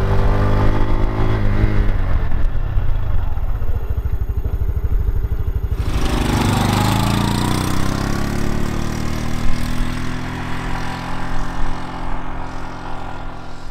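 Honda Super Cub 125's single-cylinder engine running as the bike is ridden. The engine note drops over the first couple of seconds as it eases off, then climbs as it accelerates after about six seconds in.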